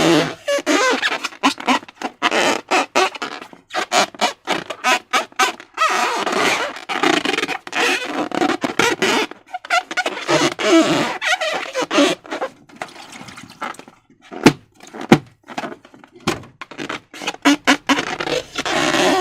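Slime and balloons being handled by hand: irregular sticky squelching and crackling in quick runs with short pauses, and two sharp snaps close together about three-quarters of the way through.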